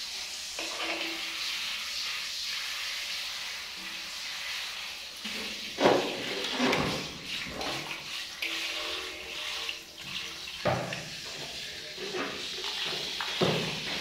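Water spraying from a handheld shower head onto a baby monkey and into an aluminium basin: a steady hiss, with three louder sudden sounds, the loudest about six seconds in.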